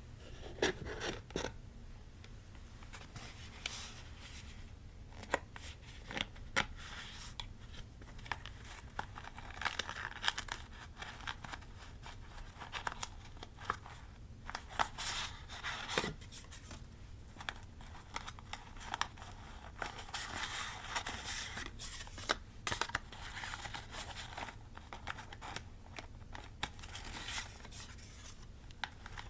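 Paper being cut and handled for scrapbooking: scissor snips with paper rustling and tearing, in short irregular bouts broken by sharp clicks.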